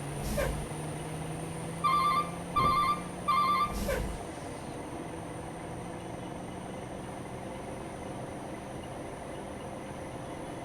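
Telolet bus horn giving three short beeps at one pitch, about two-thirds of a second apart, over a steady low engine hum, with a couple of dull knocks.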